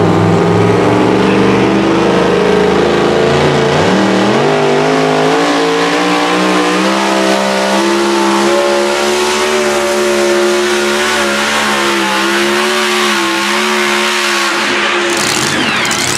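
Two-wheel-drive pulling truck's supercharged engine revving up about four seconds in and held at high revs under load as it drags the sled, then dropping off near the end as the pull finishes. A burst of hiss follows.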